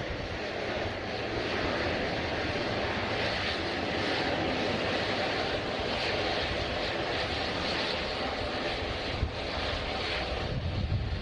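Airliner engines running: a steady, even rush with a low rumble underneath.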